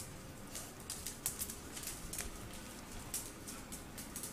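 Skunk's claws clicking irregularly on a tile floor as it scurries about, a scatter of faint, sharp ticks.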